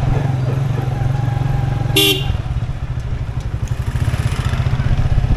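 Motorcycle engine running steadily, heard from the rider's seat, with a short horn beep about two seconds in.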